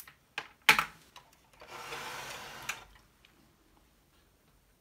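Hand-work clicks and knocks on an opened Macintosh Plus as the CRT discharge probe is set down and the deflection coil connector is handled: three sharp clicks in the first second, the loudest a knock near the one-second mark. Then comes about a second of rustling or scraping, and it goes quiet.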